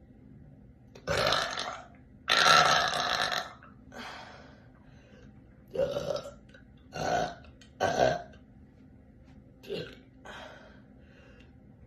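A woman burping, a run of about seven separate belches, the longest and loudest a couple of seconds in and the last ones shorter and fainter.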